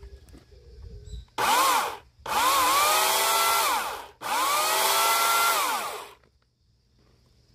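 Makita corded electric chainsaw motor run in three trigger pulls, a short one and then two of about two seconds each. Each time it whines up in pitch, holds steady, and winds down when the trigger is released.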